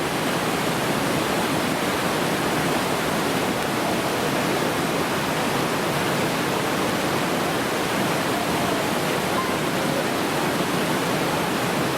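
River whitewater rushing steadily through the rapids of a canoe slalom course.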